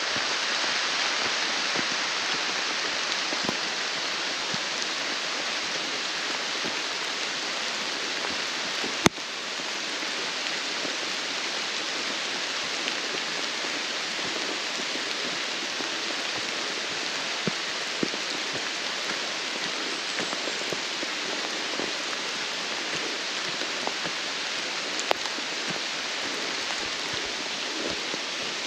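Steady hiss of rain falling on the forest canopy and leaf litter, with a few faint drop ticks. A single sharp click comes about nine seconds in.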